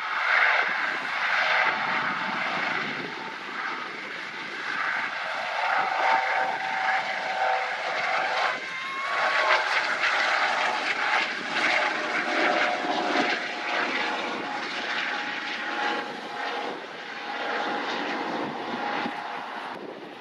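Eurocopter AS365 Dauphin twin-turbine helicopter lifting off and climbing away, running loud and continuous with the level swelling and dipping as it passes.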